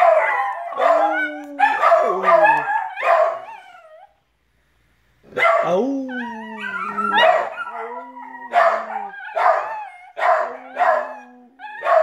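Small dogs (a puggle, a rat terrier and a dachshund-pug mix) howling and yipping in a chorus, with a man howling along in long, steady, low notes. The chorus breaks off for about a second partway through, then starts up again.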